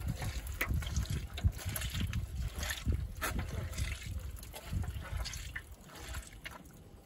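Tomato juice dripping and trickling through a mesh sieve into a basin, with many small irregular drops and splashes, thinning out near the end. The tomatoes are being pressed by hand through the screen until only the skins are left.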